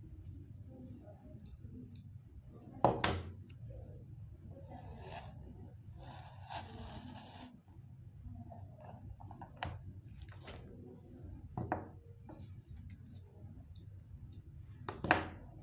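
Craft materials handled on a work table: four sharp clicks or snaps spread out, the last one the loudest, and a couple of seconds of hissing rustle about a third of the way in.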